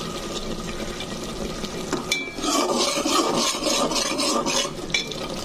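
Thick prawn and masala curry bubbling and sizzling in a metal pot, its spices fried down until the oil rises, while a metal spatula stirs and scrapes the pot in quick strokes. The stirring grows louder about two seconds in, with a brief metallic scrape.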